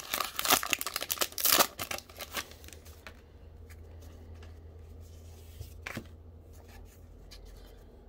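Plastic wrapper of a trading-card pack crinkling and tearing open for about the first two seconds, then quieter handling of the stack of cards with a few light ticks and one sharp click about six seconds in.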